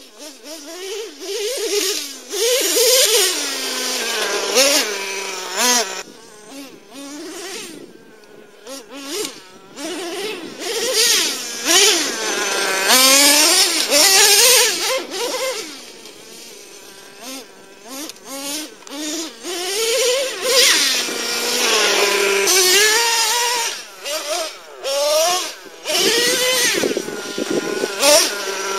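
Traxxas T-Maxx nitro RC truck's modded 3.3 engine with a drilled-out resonator pipe, revving hard in repeated bursts as the truck is driven, its pitch rising and falling, and dropping back toward idle between bursts.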